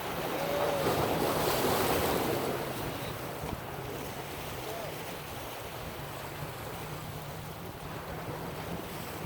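Ocean surf: a wave surges in, swelling over the first two seconds and fading away by about three seconds, then a steady wash of water. Wind buffets the microphone throughout.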